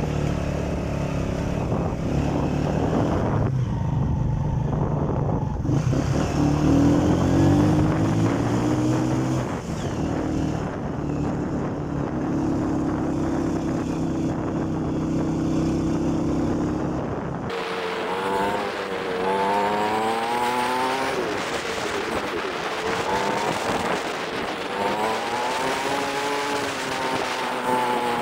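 Motorcycle engine pulling up a steep road in low gear, its pitch shifting with the throttle. About two thirds of the way through, the sound changes abruptly to a higher engine note that rises and falls.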